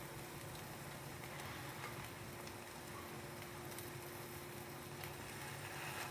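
An egg frying inside a closed mini waffle maker, a faint steady sizzle with scattered crackles.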